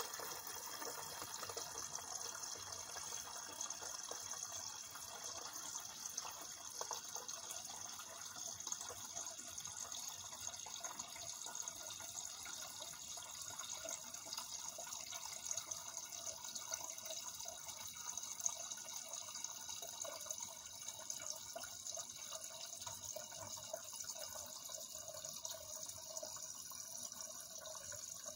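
Water flowing steadily, an even splashing rush with no break or change.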